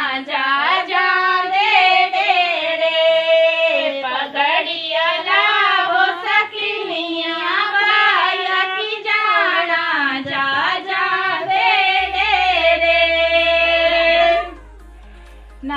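Women singing a mangal geet, a Pahari wedding folk song, in high voices with long drawn-out lines and no instruments. The singing stops for about a second near the end, then starts again.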